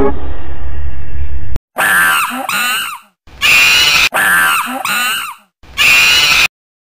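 A low steady hum with fading tones cuts off about a second and a half in. Then a chimpanzee screams and hoots in four loud, shrill bursts, one clip repeated.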